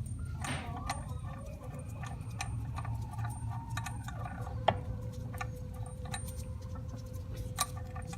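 Small metal clicks and clinks of bolts and hand tools being handled, scattered irregularly, over a steady low hum.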